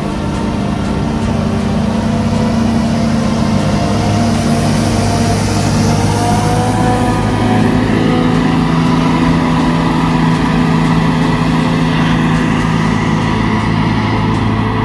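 Claas Jaguar 960 forage harvester with a Direct Disc mower header working close by, its engine running at a steady, loud drone under load as it chops whole-crop cereal, with a Massey Ferguson 8690 tractor and forage wagon running alongside. A high rushing hiss swells briefly in the middle.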